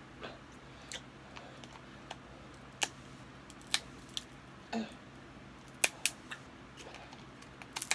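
Lobster claw shell being cracked and picked apart by hand: a handful of sharp, separate cracks and clicks spread over several seconds, with small mouth sounds between.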